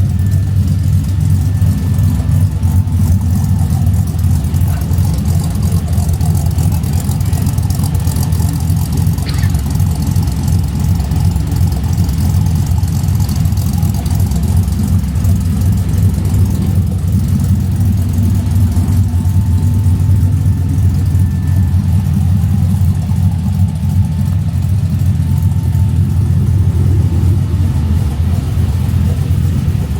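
LS V8 engine swapped into a 1988 Ford Bronco idling steadily through its true dual stainless exhaust, a low even rumble, left running to warm up.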